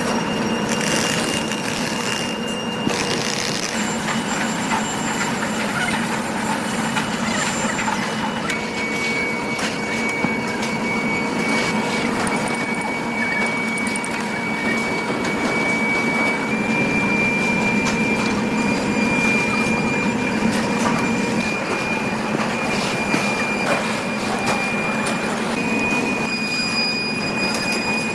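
Heavy factory machinery running steadily: a constant low hum with a continuous high-pitched metallic whine that shifts pitch a few times, and scattered light clicks.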